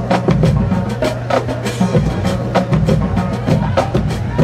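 Marching band playing on the field: the drumline beats a quick, busy rhythm over sustained low brass notes from the sousaphones.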